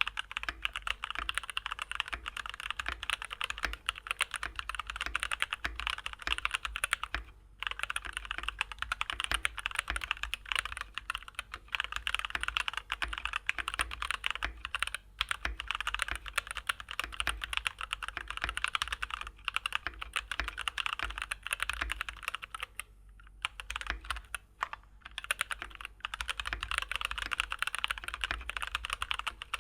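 Keychron K6 Pro mechanical keyboard with Keychron K Pro Brown tactile switches being typed on fast and continuously, a dense stream of key clicks with a few short pauses.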